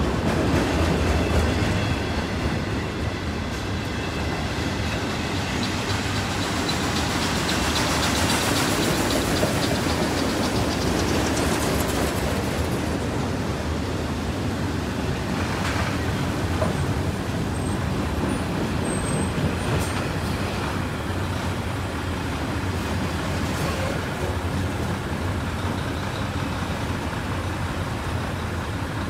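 Freight train of enclosed autorack cars rolling past: a steady rumble of steel wheels on rail, with a few short clanks of the cars.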